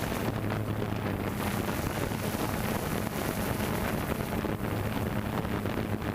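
DJI Phantom 2 quadcopter's motors and propellers humming steadily, with wind rushing over the microphone.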